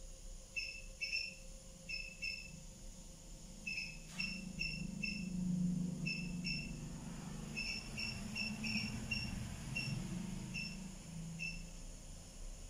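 Short high chirps from a small animal, often in pairs, repeating irregularly, over a low rumble that swells and fades in the middle.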